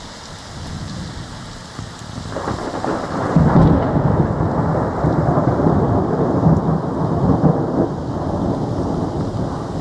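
Thunder after a lightning strike over steady rain: the low rumble builds about two seconds in, is loudest a second later and rolls on for several seconds before easing near the end.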